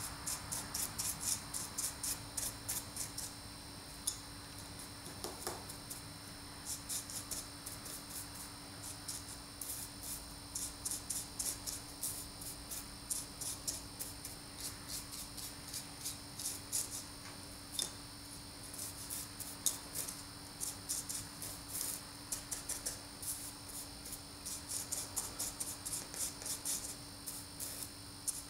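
Small brush scrubbing black weathering powder onto plastic model door pieces: a scratchy rustle in runs of quick strokes with brief pauses between them.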